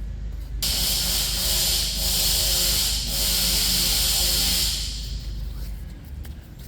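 A loud, steady hiss of pressurised gas being sprayed. It starts about half a second in and dies away after about five seconds.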